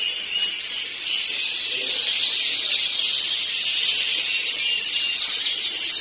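Yorkshire canary singing: a continuous, rapid song of fast trills and short whistled sweeps up and down.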